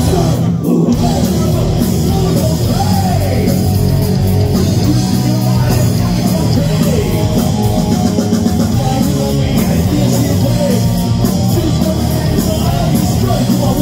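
Live heavy metal band playing loudly: distorted electric guitars, a drum kit and a singer's voice through the PA.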